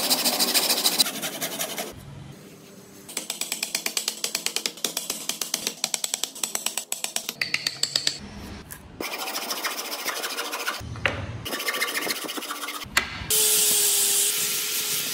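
Hand tools working wood in a series of short cuts: rapid, even scraping or filing strokes, shorter bouts of tool noise, and a steady hiss near the end.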